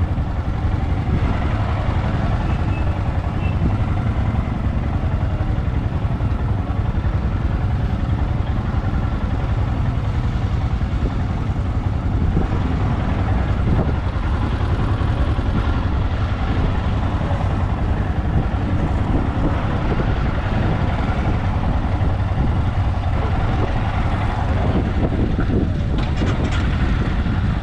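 Motorcycle on the move: a steady engine drone mixed with road and wind noise, running evenly without a break.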